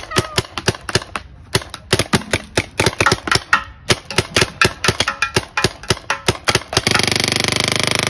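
Paintball marker fired repeatedly in quick succession, sharp pops at about four shots a second. Near the end the pops run together into a dense, continuous rapid rattle.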